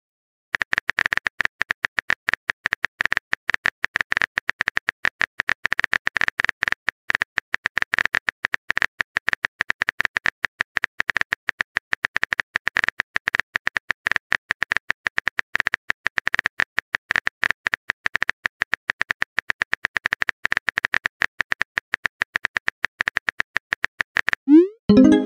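Rapid clicking of a phone-keyboard typing sound effect, many taps a second. Near the end comes a short message-sent blip that rises in pitch.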